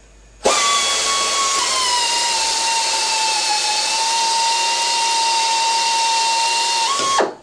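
Pneumatic air drill turning a tool-steel valve guide reamer down through a cylinder head's valve guide: a steady whine over air hiss. It starts about half a second in, drops slightly in pitch as the reamer cuts, climbs back just before the end, and cuts off when the trigger is released.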